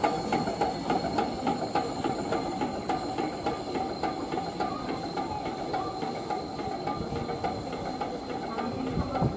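Steam train running past and moving away: a steady hiss with a rapid, even ticking of about five beats a second that slowly fades. There is a low thump near the end.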